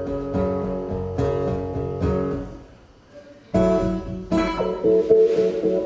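Acoustic guitar strumming chords. It fades to a brief pause a little past halfway, then comes back in louder.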